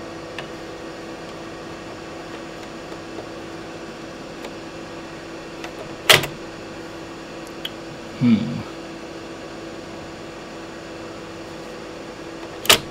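Steady hum of the powered-up HP 1650A logic analyzer, with a sharp mechanical click about six seconds in and another near the end as the Sony 3.5-inch floppy drive's mechanism is worked by hand. A brief low sound comes about eight seconds in.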